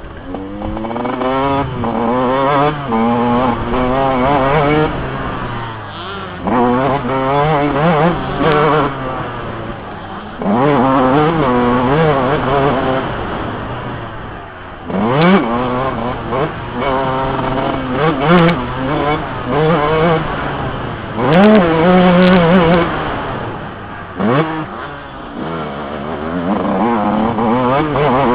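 Yamaha YZ125 two-stroke motocross engine, heard close up from the rider's helmet, revving up and dropping back again and again as the throttle is opened and closed through the corners and short straights.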